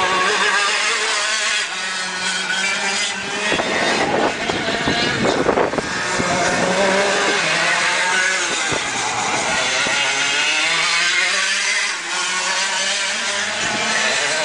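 Racing kart engines revving high as karts lap the track, the pitch rising and falling with the throttle through the corners.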